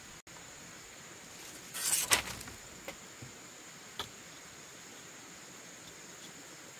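Split bamboo slats clattering and knocking against the bamboo frame as they are worked into a woven wall, with a brief burst of rattling about two seconds in and a sharp knock about four seconds in. A steady high insect buzz runs underneath.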